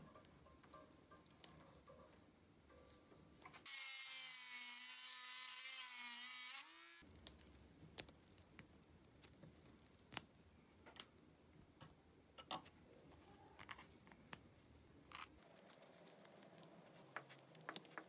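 A small power tool's motor whines steadily for about three seconds and rises slightly in pitch just before it stops. Otherwise there are scattered light clicks and knocks of small metal parts being fitted.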